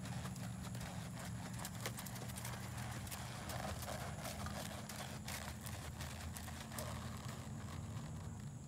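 Horse's hooves moving over arena sand and wooden ground poles, with scattered sharp ticks, over a steady low hum.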